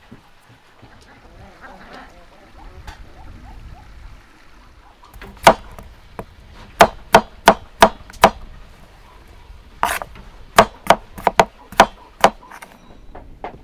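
A knife peeling a potato with faint scraping, then a large kitchen knife chopping potato on a wooden cutting board: about a dozen sharp chops in two quick runs, each run roughly two or three chops a second.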